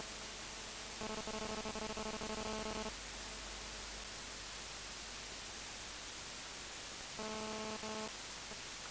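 Faint steady hiss of background noise. A faint, steady droning tone comes in twice: for about two seconds starting about a second in, and briefly near the end.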